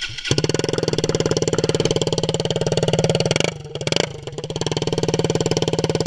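KTM 125 Duke's single-cylinder four-stroke engine idling steadily at even pitch, its fast exhaust pulses dipping briefly a little past halfway.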